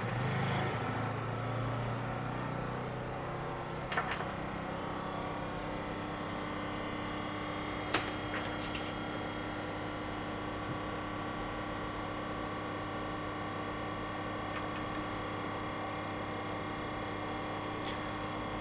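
Home-made 3D-printed impeller fume extractor, driven by an RS-540 electric motor, running with a steady whine. Two light clicks come about four and eight seconds in.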